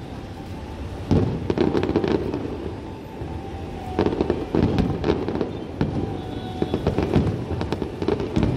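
Fireworks display: aerial shells bursting in volleys of booms and crackling, with a rolling run of bangs starting about a second in and another from about four seconds in.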